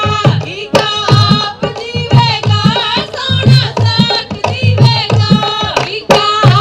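Women singing a Punjabi giddha folk song over a steady hand-drum beat, with rhythmic hand-clapping.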